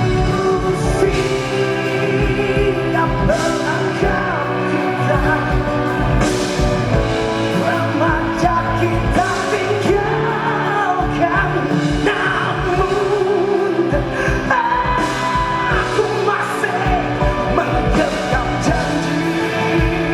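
A band playing a song with a singer, drums keeping a steady beat.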